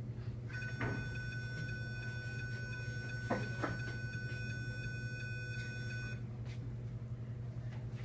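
Arduino laser-tripwire alarm sounding one steady high-pitched electronic tone, set off by someone walking through the laser beam aimed at a photoresistor. It starts about half a second in and cuts off suddenly after about six seconds.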